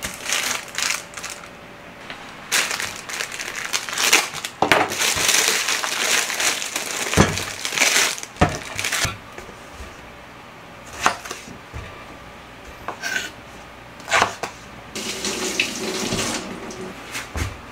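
Crinkly plastic produce bag being handled and opened around eggplants, in rustling spells, with several separate knocks and clacks on a wooden counter and cutting board.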